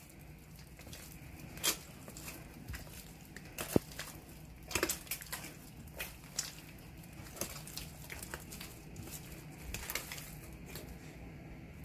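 Faint, irregular squishing and tearing of an oily porotta dough of all-purpose flour as two hands knead it on a granite countertop, with an occasional sharper smack of dough against the stone.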